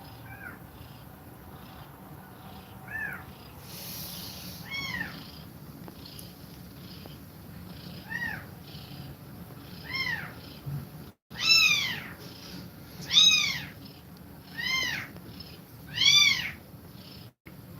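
Kittens mewing: about nine short, high-pitched, arching mews spaced through, growing louder in the second half.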